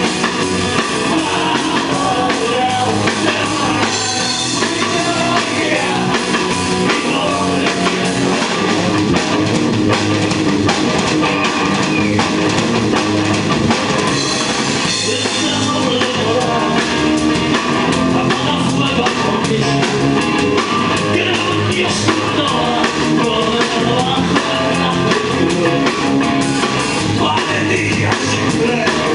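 Live rock band playing loud and steady: drum kit, electric guitar and bass guitar, with a man singing into the microphone.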